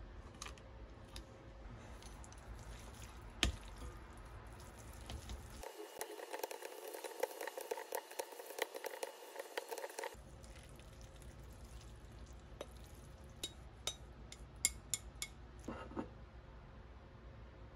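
Chopsticks mixing sauce-coated instant noodles and whelks in a glass bowl: a few seconds of wet stirring with light clinks against the glass in the middle, and scattered small clicks and taps of utensils and dishes around it.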